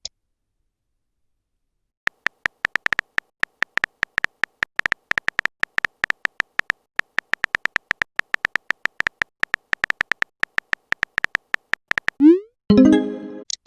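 Phone keyboard typing sounds: rapid, uneven taps, several a second, for about ten seconds. Near the end comes a short rising swoop and chime of a message-sent notification.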